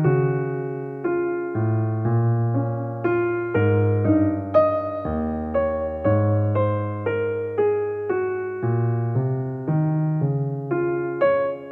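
Background piano music: a gentle line of struck, decaying notes over low chords, a new note about every half second.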